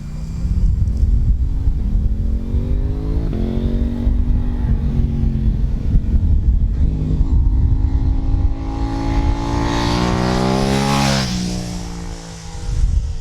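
KTM 790 Duke parallel-twin motorcycle, fitted with a Leo Vince dual LV10 slip-on exhaust, accelerating hard and shifting up through the gears. It passes by about eleven seconds in, where the pitch drops sharply and the sound is loudest. Its tone rises between the shifts.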